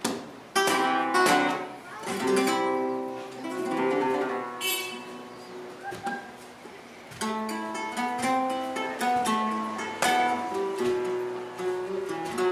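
Flamenco guitar played live, mixing hard-strummed chords with picked single-note runs. It opens with loud strummed chords, eases off briefly past the middle, then picks up again with a new passage.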